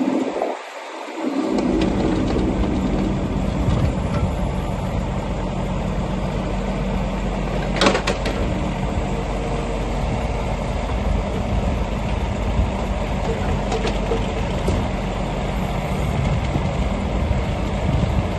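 Compact excavator's diesel engine running steadily, with one sharp knock about eight seconds in.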